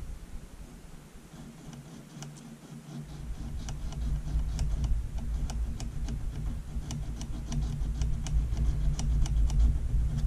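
A small hand abrasive stroking the edges of a soft cast-metal trigger housing, deburring and chamfering the rough casting: a run of light clicks and scrapes, a few per second, beginning about three seconds in, over a low rubbing rumble.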